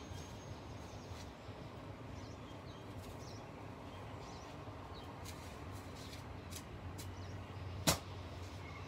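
A shovel digging into soil and mulch, with faint scrapes and small knocks. Near the end comes one sharp clank of the blade, the loudest sound here.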